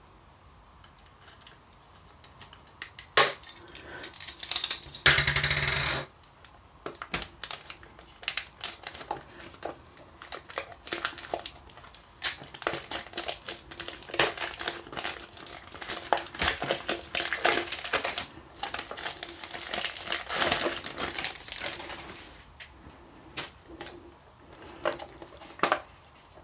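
Plastic shrink-wrap on a boxed pack being slit with a craft knife, with a loud scrape about four seconds in. Then the cellophane wrapper crinkles and crackles as it is peeled off by hand.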